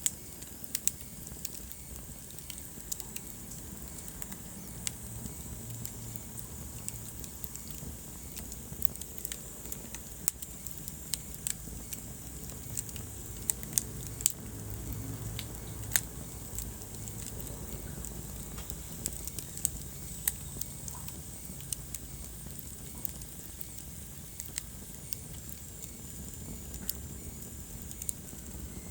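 Wood fire burning in a fireplace: an irregular series of sharp crackles and pops over a low, steady rumble.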